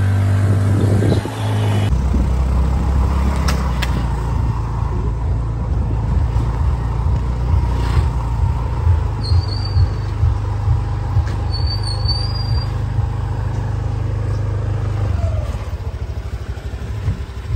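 Low rumble of a motor scooter riding slowly, with wind buffeting the microphone in uneven gusts. The rumble eases somewhat near the end, and two short high chirps come near the middle.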